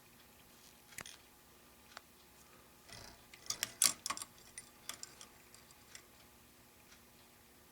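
Faint ticks about once a second, with a cluster of small clicks and rustling about halfway through, the loudest part: fly-tying tools and materials being handled at the vise.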